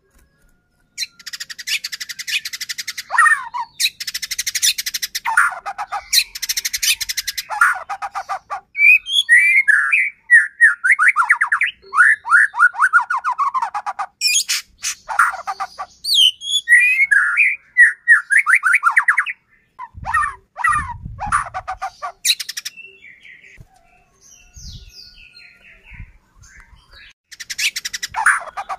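White-rumped shama (murai batu) singing in full song: fast rattling note trains, then runs of quick falling whistled notes, broken by short pauses.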